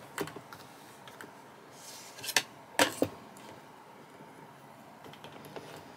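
Quiet handling of small hard plastic sewing items on a table, with three sharp clicks between about two and three seconds in.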